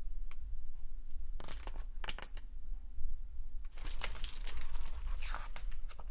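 Hardcover picture book being handled and its page turned: paper rustling in a short spell about one and a half seconds in, then a longer spell from about four seconds on, over a steady low hum.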